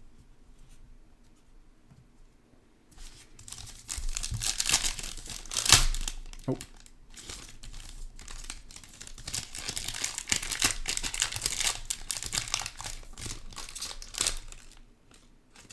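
Silver foil trading-card pouch being torn open and crinkled by hand. It starts after a few quiet seconds, then runs as a steady crackle with one sharp, loud rip about six seconds in.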